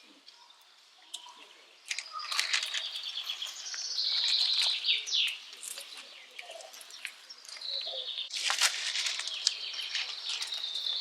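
Small birds chirping and calling in quick, high, repeated notes, with a few short clicks or rustles.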